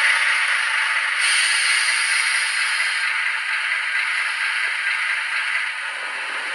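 HO scale Renault VH railcar model running, its DCC sound decoder playing the railcar's diesel engine sound through the model's small onboard speaker. A brighter hiss joins about a second in and fades out about three seconds in.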